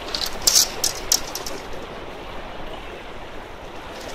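Small sea waves washing against jetty rocks, a steady rushing wash, with a quick cluster of short hissing crackles in the first second and a half.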